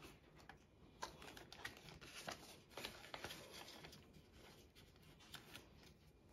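Faint rustling and light clicks from handling paper money and a clear plastic zipper envelope in a cash binder, as a bill is tucked in and the pouch closed.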